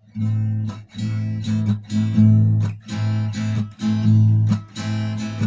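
Acoustic guitar strummed in a steady rhythm, chord strokes ringing out one after another: a song's instrumental intro.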